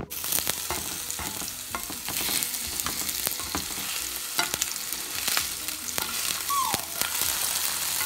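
Diced potatoes sizzling as they fry in oil in a skillet, with a spatula scraping and tapping against the pan as they are stirred.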